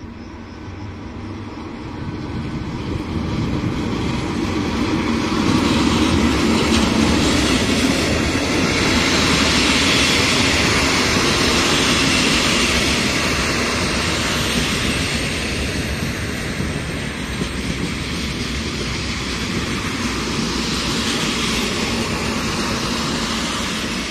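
Locomotive-hauled passenger train passing close by, its wheels rumbling on the rails. The noise builds over the first few seconds, is loudest as the coaches go by, then eases slightly.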